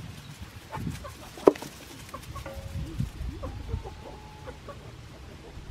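Backyard chickens clucking, with a single sharp click about one and a half seconds in.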